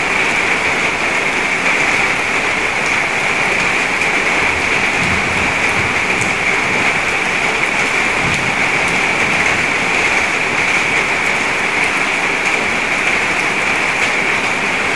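Steady rain splashing into a puddle: an even hiss with many small drop ticks. A brief low rumble comes about five seconds in and again near eight seconds.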